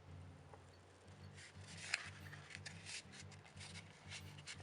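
Faint rubbing and scraping of a smooth pen barrel pressed along a flattened cardboard tube to crease the fold, in several uneven strokes.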